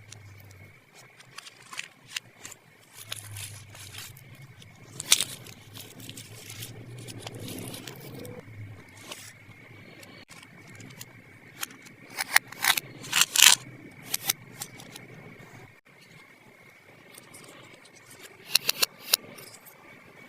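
Small plastic toy pieces and their packaging being handled: scattered sharp clicks and taps over a soft scraping rustle, with a run of louder clicks a little past halfway and another near the end.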